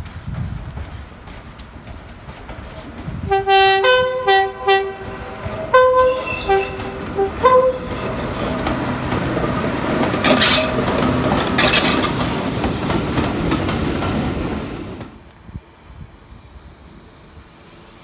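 Train's two-tone horn sounding in a series of short blasts, first several on the low note, then low and high notes in turn. The train then runs past with a loud rush of wheel and track noise that cuts off suddenly about three seconds before the end.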